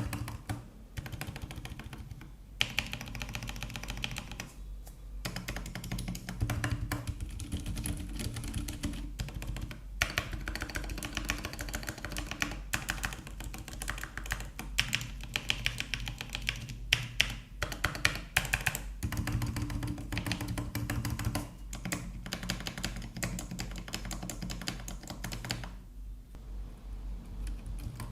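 Continuous fast typing on a Velocifire TKL02WS tenkeyless mechanical keyboard with lubed Outemu Silent White switches: a dense, even patter of dampened keystrokes, broken by a few short pauses and thinning out near the end.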